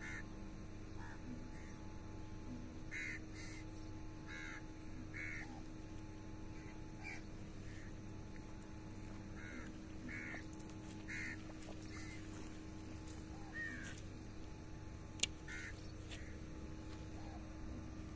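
Crows cawing on and off, many short calls, over a faint steady hum, with one sharp click about fifteen seconds in.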